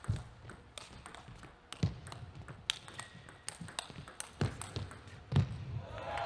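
Table tennis rally: the celluloid-style ball clicks and pings sharply off the paddles and the table in quick irregular strokes, with a few heavier thuds mixed in. Applause starts at the very end as the point finishes.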